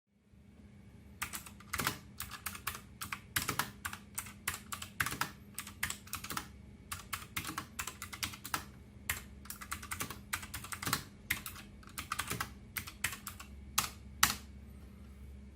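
Typing on an A4Tech Bloody B760 mechanical keyboard with Light Strike optical switches: a fast, uneven run of key clicks and clacks that starts about a second in and stops shortly before the end.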